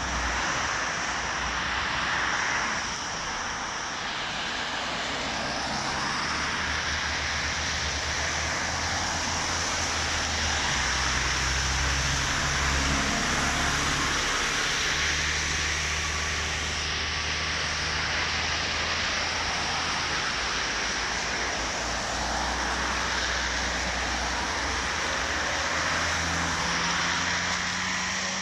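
Steady road-traffic noise, with the low hum of passing vehicles' engines swelling and fading every few seconds.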